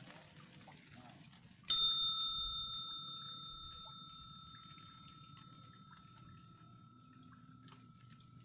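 A small metal bell struck once, about two seconds in: a single clear ring with several high tones that fades out slowly over several seconds.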